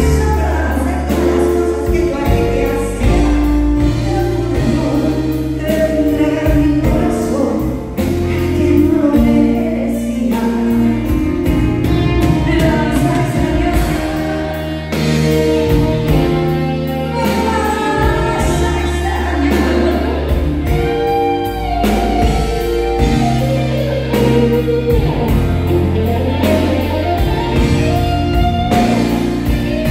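A woman singing into a microphone with a live band of drums, electric guitars and keyboards, over a steady drum beat.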